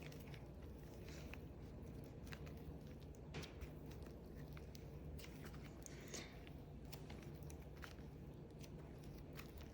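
Faint soft clicks and squishes of hands kneading a store-bought slime that is stiff and clay-like, with a slightly louder click about three and a half seconds in and again about six seconds in.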